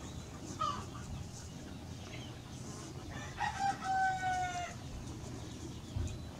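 A rooster crowing once, its long last note held for about a second and a half and sliding slightly down, with a brief chicken call about half a second in.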